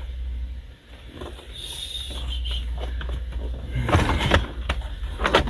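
Sharp plastic clicks and knocks of interior trim pieces being pried and handled, clustered from about four seconds in, over a steady low hum.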